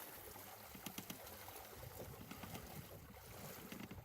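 Faint water sloshing and trickling around a small boat on floodwater, with a few light knocks.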